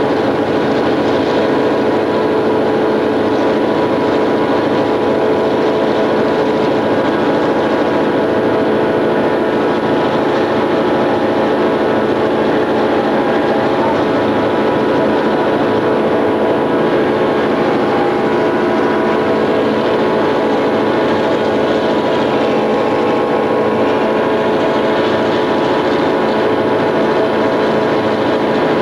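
EMD GP9 diesel locomotive's 16-cylinder 567 two-stroke engine running steadily while the train is under way, heard from inside the cab.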